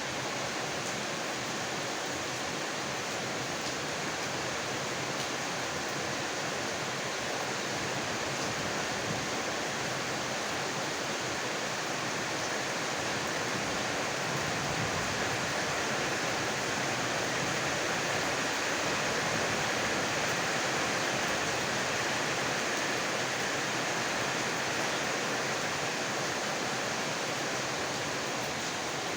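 Heavy rain falling steadily, swelling slightly louder about halfway through.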